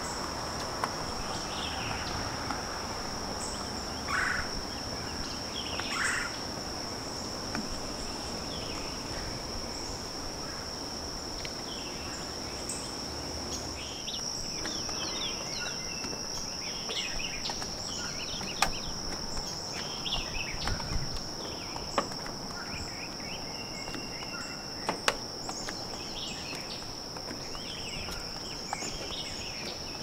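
Steady high-pitched drone of insects in the woods, with birds calling over it: two louder calls about 4 and 6 seconds in, and frequent chirps through the second half. A few sharp ticks stand out in the second half.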